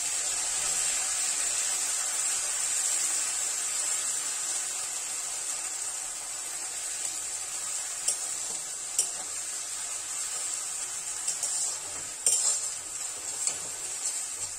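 Onion and garlic paste with sliced onion sizzling steadily as it fries in mustard oil in an aluminium kadai, stirred with a metal spatula. The spatula knocks against the pan a few times in the second half.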